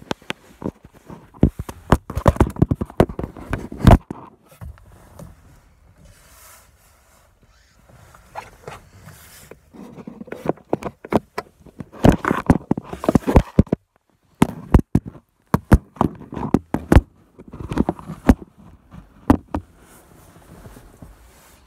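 Close handling noise: bursts of knocks, taps and rubbing right at the microphone, in three spells with quieter stretches between them.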